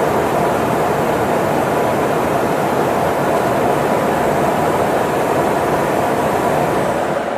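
Steady rushing noise of jet engines and airflow inside a military tanker aircraft's cabin.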